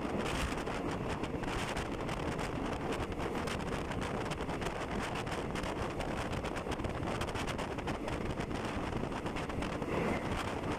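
Wind rushing over the microphone at the open window of a moving passenger train, over the train's running noise; a steady, unbroken rush.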